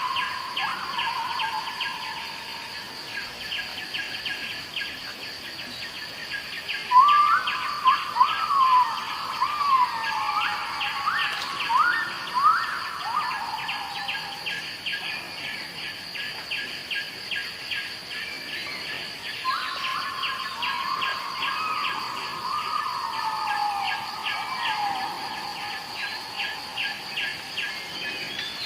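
Insects chirping steadily at about three to four pulses a second, joined by two runs of high calls that slide downward, the loudest a little after the first quarter.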